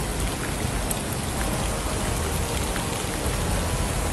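Heavy downpour on a flooded street: a steady hiss of rain with running floodwater.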